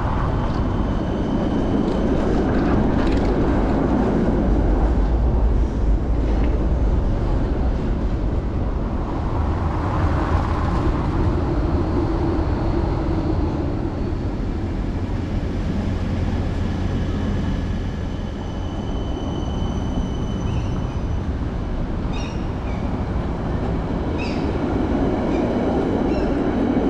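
Train running on rails: a steady rumble, with faint high whining tones coming and going.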